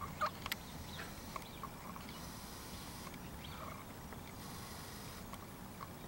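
A few sharp, light taps and clicks, the loudest near the start, as a crow pecks and shifts on a wooden bird feeder close to the microphone.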